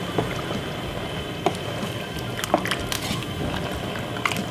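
Wooden spoon stirring a thick chicken and potato stew in a pot: wet stirring with a few scattered sharp clicks and knocks of the spoon against the pot, over a steady background hiss.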